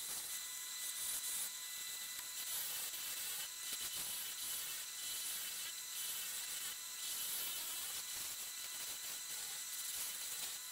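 A turning tool cutting the underside of a pink ivory and Combretum schumannii bowl on a spinning wood lathe: a steady hissing scrape as the underside is shaped down towards a point, with a faint high whine beneath it.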